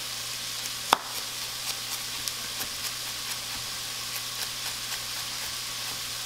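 Chef's knife chopping carrots on a wooden cutting board: one sharp knock about a second in, then lighter chops two or three a second. Under it runs the steady sizzle of diced onion sautéing in olive oil.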